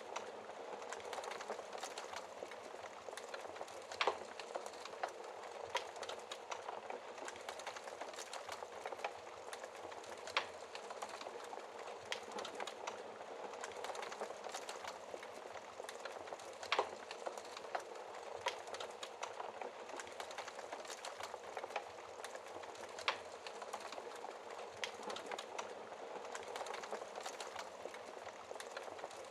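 Wood fire burning in a fireplace: steady crackling with many small pops and a louder snap about every six seconds.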